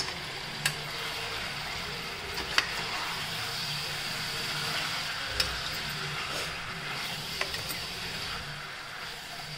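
Marinated chicken sizzling as it fries in hot oil in a kadai, stirred with a metal slotted spoon that clicks sharply against the pan four times.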